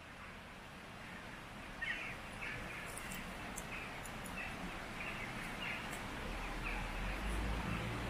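Small stream flowing with an even rush. A bird calls over it with short repeated calls, about two a second, starting about two seconds in. A low rumble comes in near the end.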